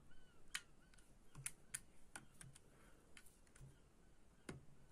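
Faint scattered small metallic clicks and ticks from an Air Arms S510 air rifle's action being worked, its bolt probe sliding through a newly fitted breech seal; the sharpest click comes about four and a half seconds in.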